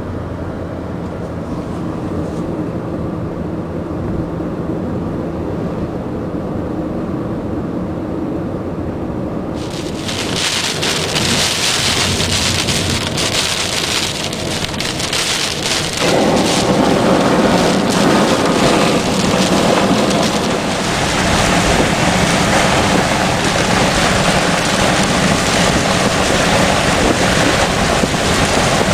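Thunderstorm rain: a low rumble at first, then heavy rain starts pouring about ten seconds in with a steady hiss, and grows heavier and louder about six seconds later.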